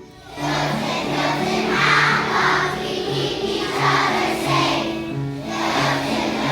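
Intro music: a group of voices singing together over a repeating bass line, starting about half a second in.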